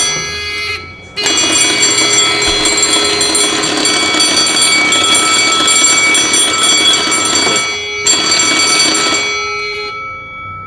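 Electric fire alarm bell ringing loudly, cutting out briefly about a second in and again near the eight-second mark before dying away near the end. It was set off accidentally while the wires were being drawn, not by a fault.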